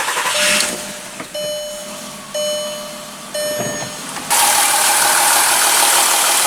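2003 Jetta's 2.8 VR6 engine being started after a coil pack swap to check whether the misfire is gone. Three short beeps sound about a second apart, then about four seconds in the engine sound jumps to a loud, steady run.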